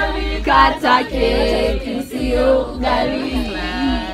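A small group of voices singing together without accompaniment, holding long notes with short breaks between phrases.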